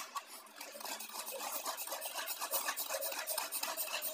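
Pull-cord manual vegetable chopper being pulled again and again, its blades spinning inside the plastic bowl and chopping onions: a fast, uneven run of clicks and rattles starting about half a second in.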